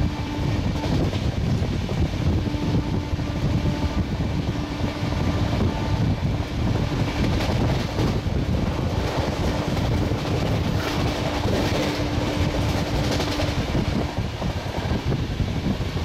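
Duronto Express LHB coaches running at speed, heard from an open coach doorway: a steady heavy rumble of wheels on rail with wind buffeting. A steady horn tone from the locomotive up ahead sounds faintly in several long blasts.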